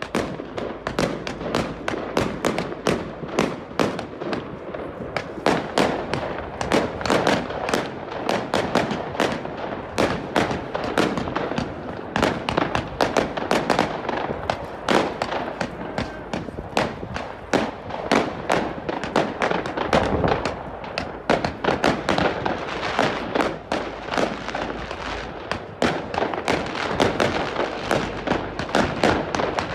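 Fireworks going off in a rapid, unbroken string of sharp cracks and bangs, several a second.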